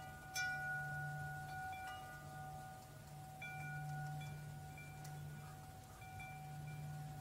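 Metal tube wind chimes struck by the clapper every second or so at irregular intervals, each strike leaving clear bell-like tones that ring on and overlap, over a low steady hum.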